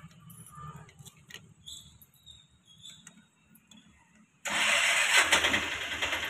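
Scooty Pep scooter's small petrol engine starting suddenly about four and a half seconds in, then running steadily, after a few faint clicks of handling.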